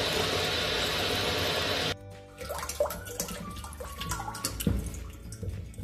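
Tap water running into a stainless steel pot in a kitchen sink: a steady rush for the first two seconds that stops suddenly, then a thinner stream splashing and trickling into the water already in the pot. Background music plays alongside.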